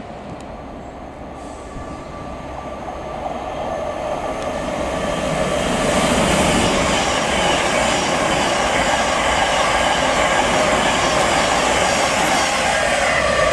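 A train draws near, growing louder over the first six seconds, then runs close by at a steady level. Several steady high tones sound over the rumble of the wheels.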